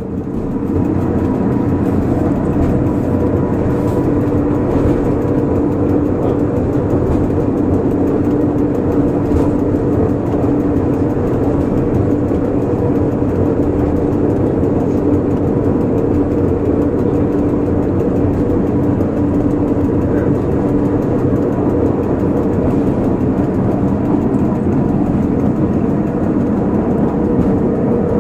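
Electric rack-railway car of the Pilatus Railway heard from inside as it runs downhill. A steady drone of motors, gearing and wheels on the cog track, with a constant whine at a few fixed pitches, rising in at the start and then holding even.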